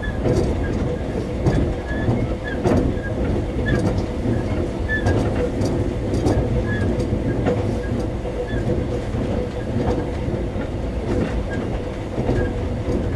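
Taiwan Railway EMU400 electric multiple unit running at speed, heard inside the passenger car: a steady low rumble of wheels on the track with a steady hum, and irregular clicks every second or so.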